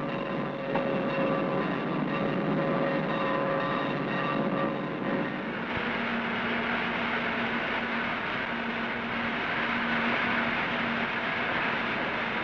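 Union Pacific 9000-class steam locomotive standing in the roundhouse yard: a steady hiss with held humming tones. About six seconds in, the sound changes abruptly to a broader, brighter hiss over a lower steady hum.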